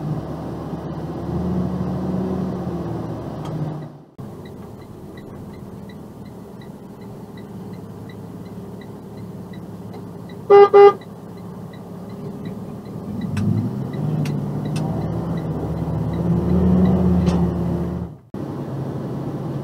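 Box truck's engine running, with two short, very loud blasts of its air horn in quick succession about ten seconds in.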